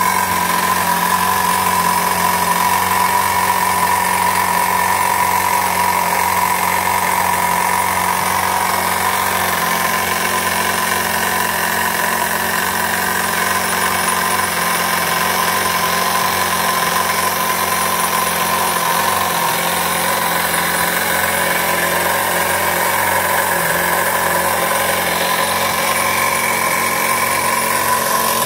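Toyan L400 miniature inline four-cylinder model engine running steadily at a constant speed, a fast, even buzz.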